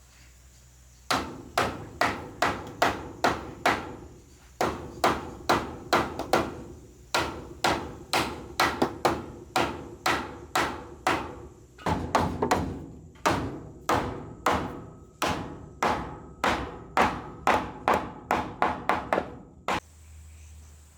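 Hammer blows on wood, about two to three a second, in steady runs broken by short pauses about four and twelve seconds in.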